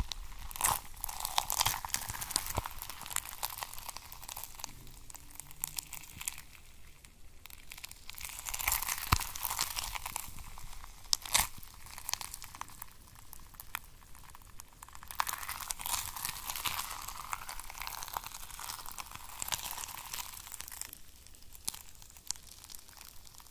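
Clear bubbly gel squished and smeared over a plastic surface close to the microphone, making wet, crackling, crinkly noise that swells and fades in waves every few seconds, with scattered sharp clicks.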